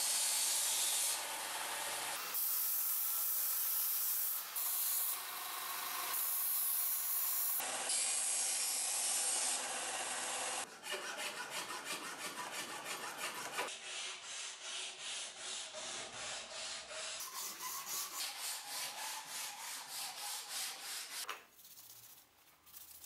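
Benchtop belt sander grinding a wooden axe handle, in several short stretches. Then hand sanding of the handle with a strip of abrasive, even back-and-forth strokes about three a second, fading near the end.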